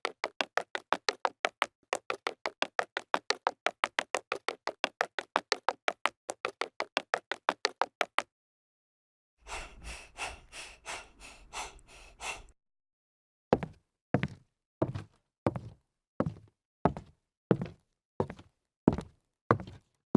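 A series of sharp knocking taps: a fast, even run of about five a second for some eight seconds, then a short softer run over a low hum, then slower, heavier knocks about one and a half a second apart.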